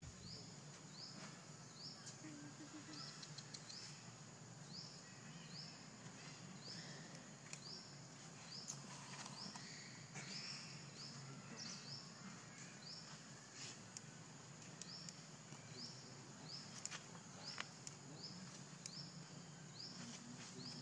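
Faint natural outdoor ambience: a steady high insect drone, with a short rising chirp repeating about once a second and a few scattered faint clicks.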